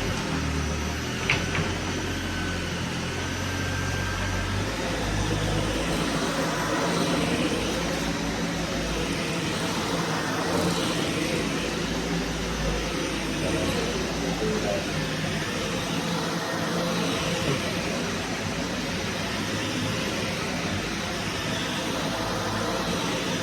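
Vacuum cleaner running steadily, a constant motor hum under a broad rush of airflow, its tone shifting slightly now and then.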